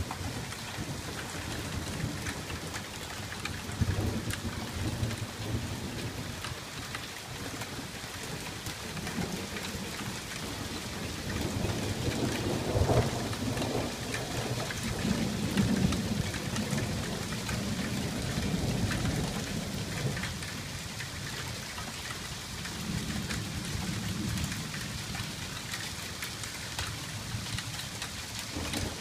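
Steady rain falling on pavement and standing water during a thunderstorm, with rolling thunder in several long, low rumbles that swell and fade. The loudest rumbling comes about halfway through.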